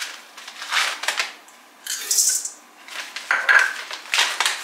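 Cacao nibs shaken from a small container into a stainless steel mixing bowl, rattling against the metal in several short bursts.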